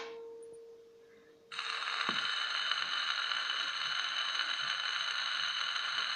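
Gramophone soundbox set down on a spinning 78 rpm shellac record: about a second and a half in, the needle drops into the lead-in groove and a steady hiss of surface noise with fine crackle begins, just before the music starts.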